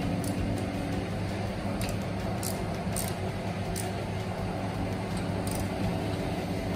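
A few light metallic clicks from a screwdriver and screws being worked on the underside of a planetary mixer's head, over a steady low hum.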